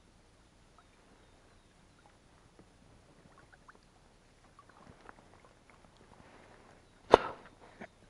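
Oars working a small rowboat: faint drips and light knocks on the water and hull, then a sharp, loud knock from an oar stroke about seven seconds in.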